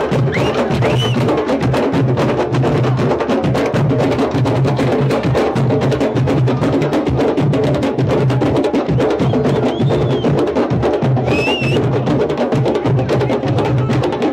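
Candombe drum section (tambores chico, repique and piano) playing in full, drumheads struck with hand and stick and sticks clacking on the wooden shells, over a steady repeating low pulse from the piano drums.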